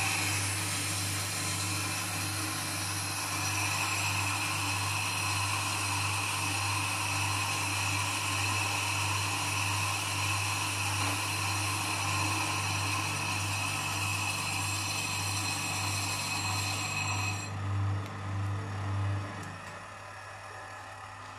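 FDT6000 brake disc lathe skimming a spinning brake disc: a steady motor hum under a high-pitched whine and hiss from the cutting tool working across the disc face. The cutting sound stops near the end, and the machine's hum drops away about two seconds later.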